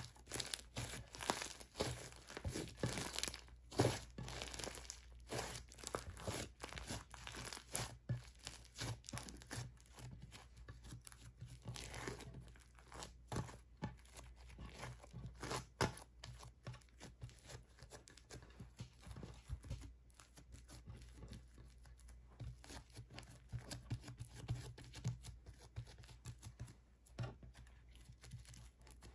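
Thick pink slime packed with foam beads being squished and pressed flat by hand, giving a stream of sticky crackles and pops. The crackling is busier and louder in the first half and thins out towards the end.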